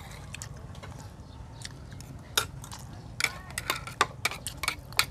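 Metal spoons and forks clicking and scraping against plates and bowls in sharp, irregular clicks, more frequent in the second half, over a low steady hum.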